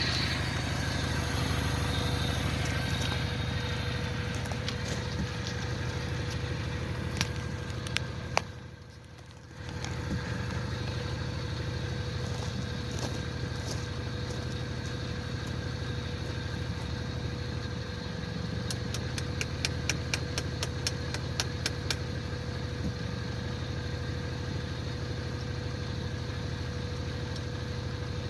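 Car engine idling steadily at warm idle. The sound drops away briefly about nine seconds in, and a run of quick ticks comes a little past the middle.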